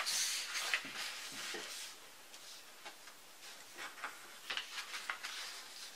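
A sheet of paper rustling and sliding on a desk as it is moved, then short, light scratches of a pen writing on paper about four seconds in.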